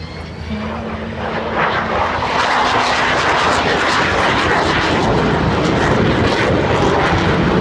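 Avro Vulcan XH558's four Rolls-Royce Olympus turbojets in a low flypast: the jet roar builds over the first two or three seconds, then stays loud as the bomber passes.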